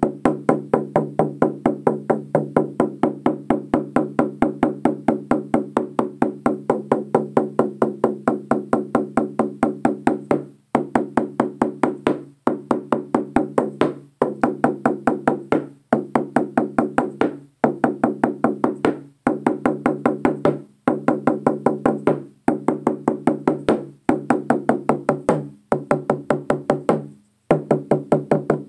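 Frame drum struck with a red-headed beater in a steady, even beat, its low tone ringing on under the strokes. About ten seconds in, the beat breaks into short runs of strokes with brief pauses between them.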